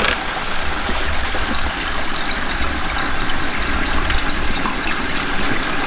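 Tap water pouring steadily from a hose onto a concrete sink floor, a continuous splashing run of water.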